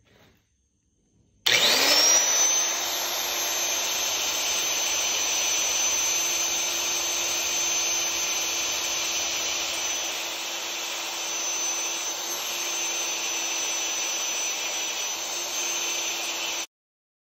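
A high-speed motor spinning up with a quickly rising whine, then running steadily with a high whine over a noisy rush, cut off abruptly near the end.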